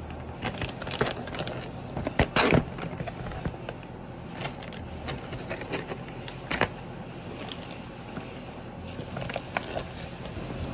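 Scattered light clicks and knocks, the loudest a quick cluster about two seconds in, over a steady low hum.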